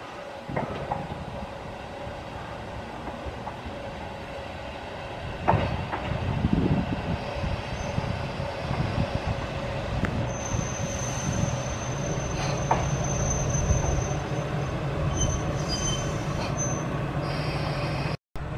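JR Kyushu KiHa 125 diesel railcar approaching and pulling in. Its engine and its wheels on the rails grow louder about five seconds in, with a few sharp clicks. A high, steady squeal from the running gear sounds from about ten seconds in as it slows.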